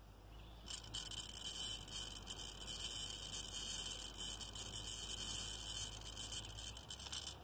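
Long, steady breath drawn in through the mouthpiece of an incentive spirometer: air hissing through the tube with a high whistling tone, starting about a second in and stopping just before the end, as a lung-capacity test.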